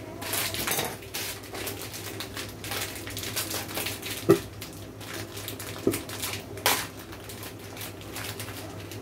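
Plastic packet of dried noodles rustling and crinkling as the noodles are shaken out into a steel pot. A sharp metallic clink rings out about four seconds in, with lighter knocks about six and seven seconds in.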